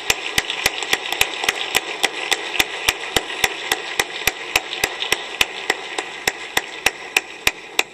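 Applause from the legislators in a large chamber, with one person's sharp, even claps about four a second standing out over the crowd's clapping. It dies away near the end.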